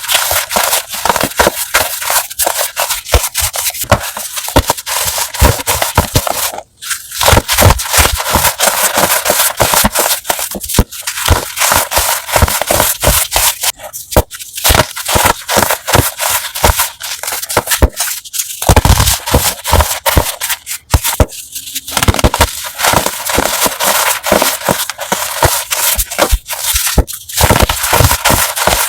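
Blocks of crumbly chalk, including homemade gym chalk, being crushed. It is a dense, continuous crunching and crackling with a few short pauses.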